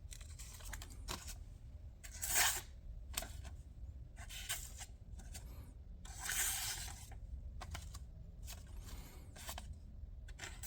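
Pocket knife blade slicing through material in a few short, scraping, tearing strokes, the longest lasting about a second, with faint clicks between them.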